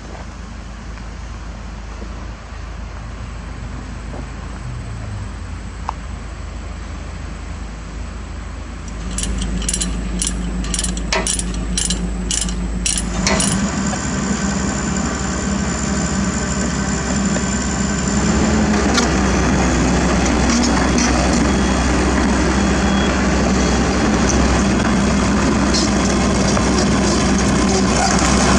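Heavy diesel engine idling steadily, growing louder about nine seconds in and again a few seconds later. A quick series of sharp clicks sounds between about nine and thirteen seconds.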